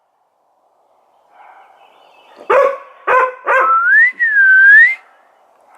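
A dog barks three times in quick succession. Then a high, clean whistle-like tone glides upward, dips and rises again for about a second and a half.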